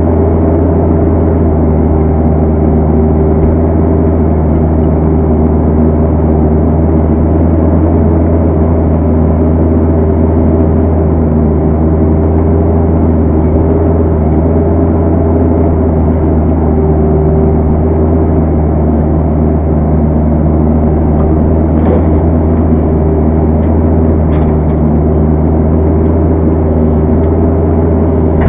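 Kubota KX121-3 mini excavator's four-cylinder diesel engine running steadily under work, heard from the operator's seat, with a low, even drone. A couple of light knocks come in the second half.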